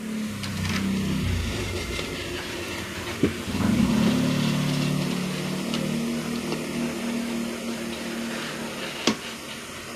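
Low rumbling handling noise from a phone microphone being moved about, with a sharp click about three seconds in and another near the end as a jack plug is pushed into the keyboard's pedal socket.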